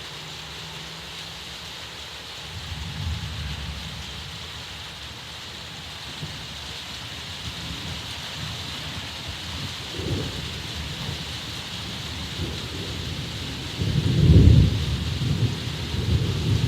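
Steady heavy rain with rolling thunder. The rumbles build from about two seconds in, and the loudest clap of thunder comes about fourteen seconds in.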